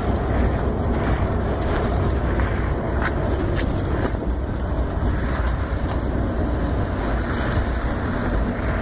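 A car driving steadily along a snow-covered road, heard from the car itself: an even rumble of engine and tyres.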